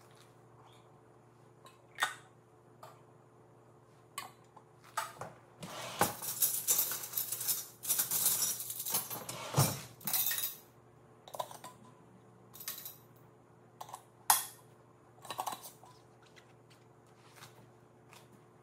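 Glass mason jars and their metal lids and screw bands being handled as the rims are wiped and the lids and bands fitted: scattered clinks and taps, with a denser stretch of rubbing and scraping from about five to ten seconds in.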